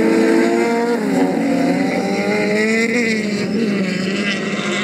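Engines of two rallycross race cars running hard at close range. Their pitch dips about a second in and climbs again as they come off the throttle and accelerate through a corner.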